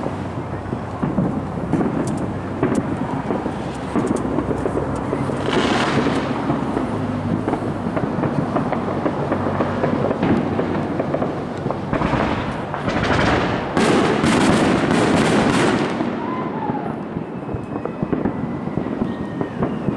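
Fireworks going off in a continuous rumble of overlapping bangs and crackling. Louder bursts of crackle come about six seconds in and again from about twelve to sixteen seconds.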